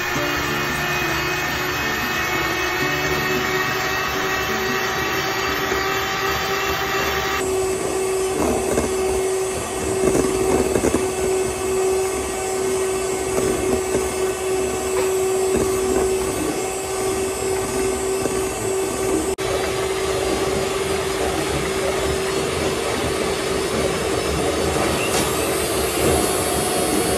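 Electric hand mixer running steadily, its beaters whisking egg whites into meringue in a stainless steel bowl: a continuous motor hum with the rough rattle of the beaters against the bowl. The sound changes abruptly twice.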